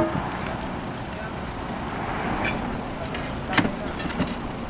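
A few short knocks of a roof ridge cap tile being set in place and bedded against the tiles beneath. The loudest comes about three and a half seconds in. Behind them is a steady outdoor noise.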